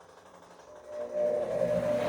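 Bosch Komfort-Klasse washing machine starting up about a second in, its drum motor running with a steady whine during a wash cycle.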